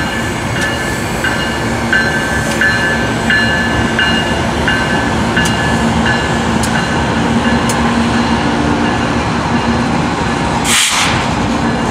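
Ferromex diesel-electric freight locomotives passing close by, engines running and wheels rolling on the rails. A faint high squeal pulses about every two-thirds of a second, and there is a brief hiss near the end.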